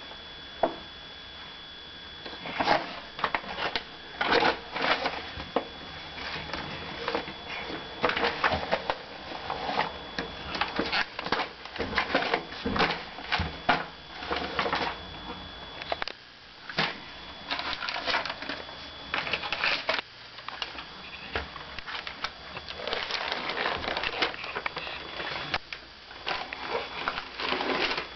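A baby's hands crumpling and tearing newspaper and magazine paper: irregular clusters of crackling and rustling.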